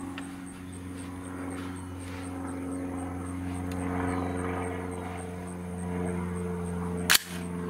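A single shot from a 300 Blackout AR-style rifle firing a subsonic 178-grain ELD-X handload, sharp and brief, about seven seconds in and the loudest sound. A steady engine drone runs underneath throughout.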